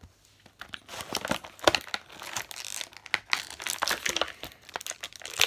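Clear plastic toy packaging crinkling and crackling as it is handled and pulled open. It comes in irregular rustles starting about a second in.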